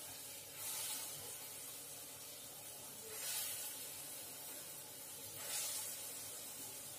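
Hot oil sizzling steadily as spoonfuls of dahi vada batter are dropped in to fry. The sizzle swells three times, about every two and a half seconds, as each new spoonful goes in.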